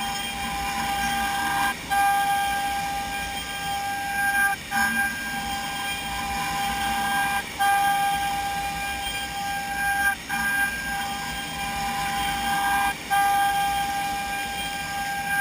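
Format4 CNC machining centre milling wood: the spindle whines at a steady high pitch while the cutter runs through the workpiece. The sound drops briefly about every three seconds.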